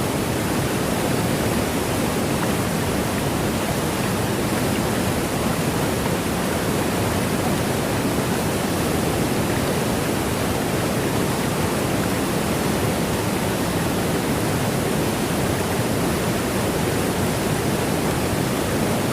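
The HSBC Rain Vortex, a 40-metre indoor waterfall, falling steadily: an even, unbroken noise of falling water.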